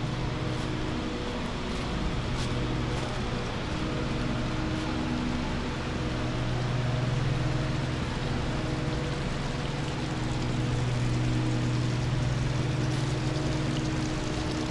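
Steady city hum: a low, even machine drone mixed with road traffic noise.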